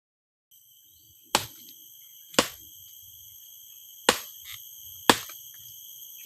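Steady high-pitched drone of jungle insects, with five sharp strikes over it, roughly a second apart and with a longer gap in the middle.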